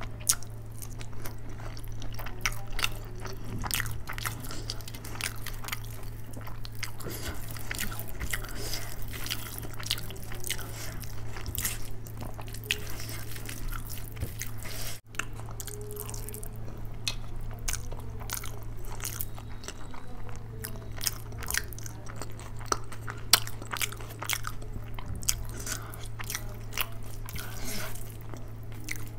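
Close-miked eating: a person chewing soft mouthfuls of rice and curry, with many quick wet smacking clicks, and fingers squishing rice into curry on the plate. A steady low hum runs underneath.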